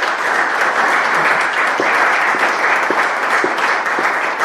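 Audience applauding: a loud, steady round of clapping from many hands.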